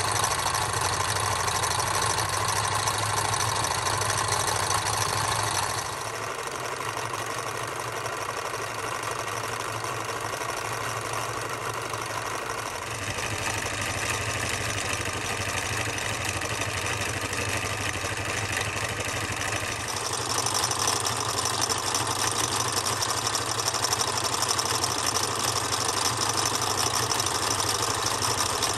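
Antique Krauss, Mohr & Co. toy hot air engine running steadily, a fast even mechanical clatter of its piston, linkage and flywheels as it drives a toy mill through a spring belt. The sound turns quieter about six seconds in and louder again from about twenty seconds.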